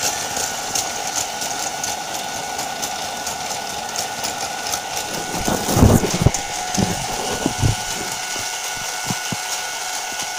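Plarail Kan-Kan toy level crossing's electronic warning bell ringing steadily over the whir of a battery-powered toy train's motor and gears. About halfway through comes a brief clatter of loud knocks, followed by a few scattered clicks.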